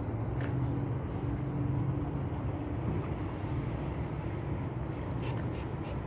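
Foghorn sounding a long, low, steady note that fades out about halfway, over a steady low rumble of background noise.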